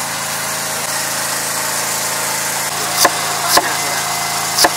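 Steady engine-like hum, and from about three seconds in a large knife chopping through a carrot onto a wet cutting board: three sharp knocks.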